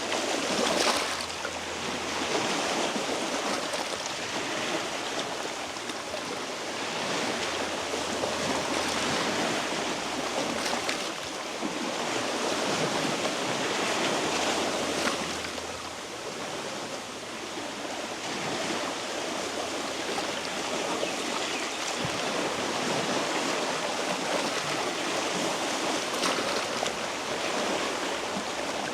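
Sea waves washing over a rocky shore: a steady rush of water that swells and eases every few seconds.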